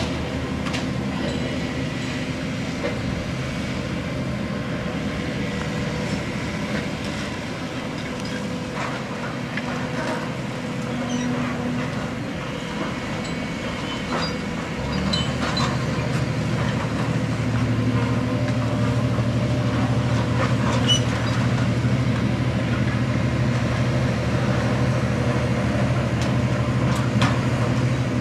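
Volvo EC360C HR high-reach demolition excavator at work, its diesel engine running steadily under hydraulic load. The engine note grows louder and deeper about halfway through, with scattered knocks and clatter of broken masonry and debris.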